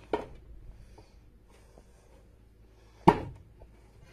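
A frying pan flipped upside down onto a plastic tray and set down with one sharp knock about three seconds in, after faint handling noises and a small click at the start.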